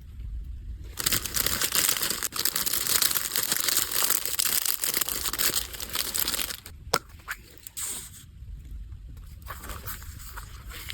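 Packaging being handled: a long stretch of paper or plastic crinkling and tearing, then a few sharp clicks, and more crinkling near the end.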